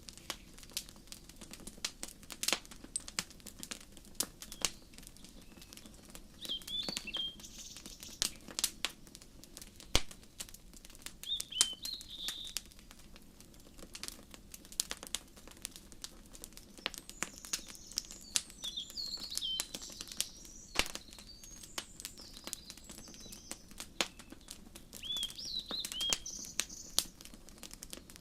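Wood fire crackling and popping irregularly over a low steady rush of flame. Small songbirds chirp in short phrases several times, about 7, 12, 18 to 20 and 25 seconds in.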